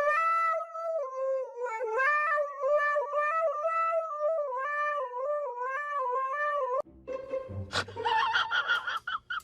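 A high, reedy melody on a wind instrument, wavering and stepping between notes, that cuts off abruptly about seven seconds in. A short, noisier stretch of a different sound follows.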